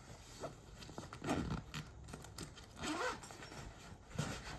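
Scraping and rustling of a box of toy cars being handled and opened, in three short bursts.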